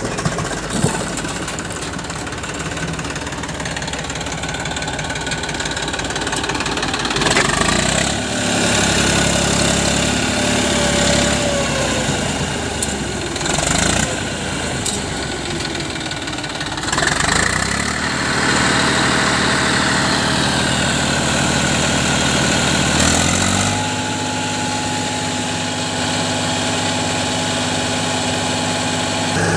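Eicher 480 tractor's diesel engine running with a loaded trolley hitched, its speed rising and falling several times before settling at a steady, higher pitch about three quarters of the way through.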